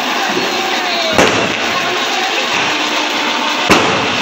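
Handheld firework fountain hissing steadily as it sprays sparks. Two sharp firecracker bangs go off, about a second in and again near the end.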